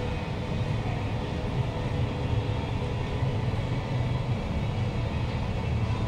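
Steady low hum and rumble of an underground metro station platform behind closed platform screen doors, with no train yet in the platform.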